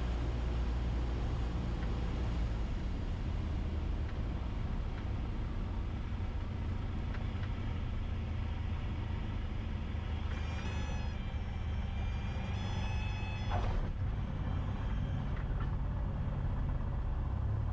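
Cessna 172SP cabin with its four-cylinder Lycoming engine droning steadily through the final approach. About ten seconds in, a high wavering warning tone sounds for some three seconds, the stall warning horn in the flare, and ends in a brief bump at touchdown.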